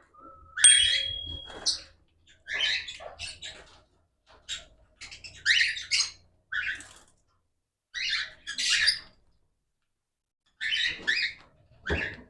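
Cockatiels calling and chirping in a series of short bursts with brief gaps between them.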